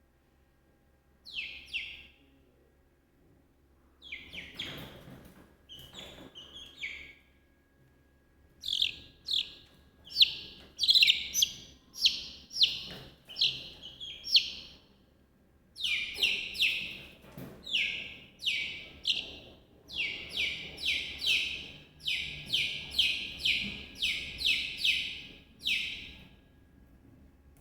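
Chicks peeping: many short, high calls, each falling in pitch. They are scattered at first, then come in quick runs of about two to three a second.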